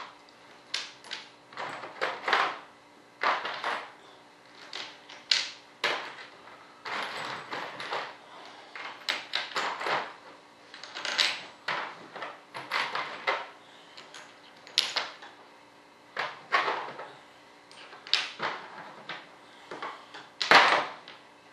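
Small metal bolts and hardware clinking and clattering on a workbench as they are sorted and handled by hand, in irregular clicks and short rattles with a few louder knocks.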